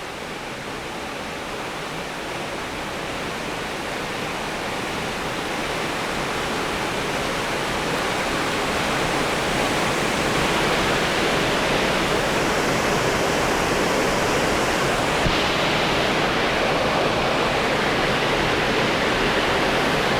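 Lower South Falls, a waterfall, with a steady rush of falling water that grows louder over the first ten seconds or so and then holds level.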